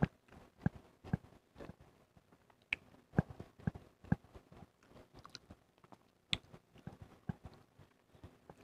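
Close-miked eating: chewing and mouth sounds, with irregular light clicks of a metal spoon scooping against a ceramic bowl of rice.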